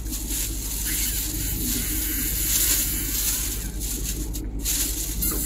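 Car engine idling, heard from inside the cabin as a steady low hum with an even hiss over it.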